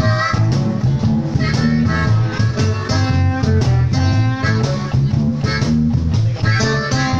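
Live blues band playing: electric guitar over a bass guitar line, with a cajon keeping the beat.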